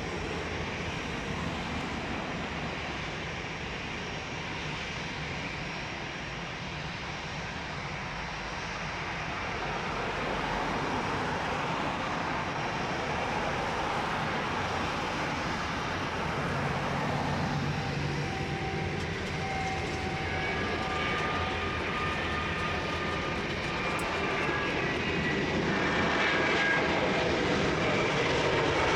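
Jet engines of an Airbus A330neo airliner (Rolls-Royce Trent 7000s), a steady roar that grows louder as the aircraft draws closer. High whining tones come in over the roar in the second half.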